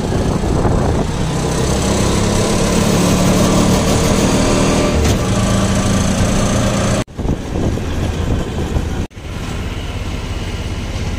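Auto-rickshaw engine running steadily on the move, with wind and road noise rushing in through the open side. The sound breaks off abruptly twice, about seven and about nine seconds in.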